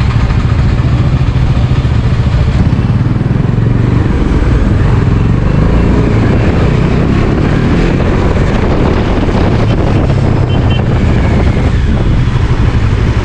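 Bajaj Dominar 400 motorcycle's single-cylinder engine running on the move, a steady low rumble.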